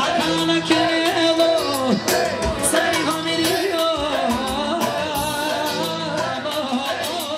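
Music: a singing voice carrying a wavering, ornamented melody over a steady drum beat.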